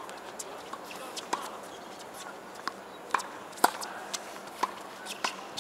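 Tennis rally on a hard court: sharp pops of the racket strings striking the ball and the ball bouncing, several over a few seconds, the loudest hit about three and a half seconds in.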